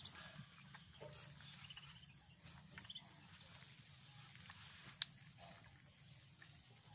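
A brood of ducklings peeping faintly now and then, with one sharp click about five seconds in.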